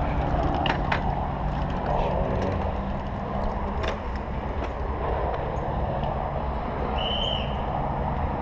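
Steady motor-vehicle noise: a low engine hum over road noise, broken by a few sharp clicks and a short high squeak about seven seconds in.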